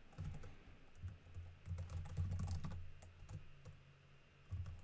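Typing on a computer keyboard: an irregular run of keystrokes, each a sharp click with a dull thud under it.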